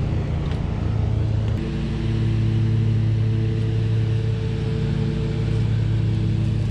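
A motor running steadily: a low hum with several held tones above it, whose pitch pattern shifts about a second and a half in.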